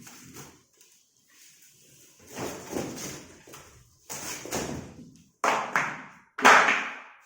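Packing supports being pulled off a new refrigerator: scraping and rustling handling noise, then three sharp knocks near the end, the last one the loudest.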